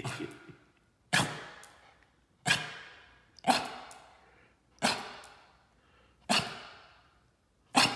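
Yorkshire terrier giving short, sharp, sneeze-like barks, about seven of them at roughly one a second, each trailing off in a brief echo.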